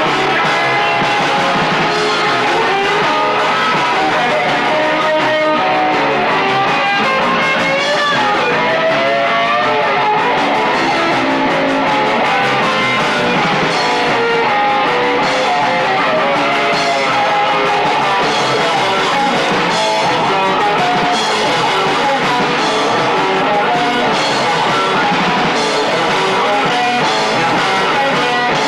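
Punk rock band playing in a garage: distorted electric guitars and drums through amplifiers, loud and continuous, picked up by a camcorder microphone that leaves it thin with almost no low end.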